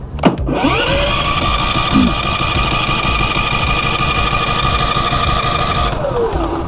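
Westinghouse iGen 4500 DF generator's electric starter cranking the engine with no fuel connected, turning it over to circulate the new oil. A click, then a whine that rises as it spins up, runs steadily for about five seconds and winds down near the end.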